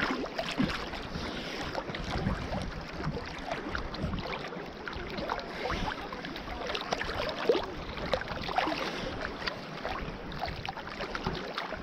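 Sea water sloshing and splashing around a camera held at the water's surface by a swimmer, with many small irregular splashes and clicks from swimming strokes and wavelets.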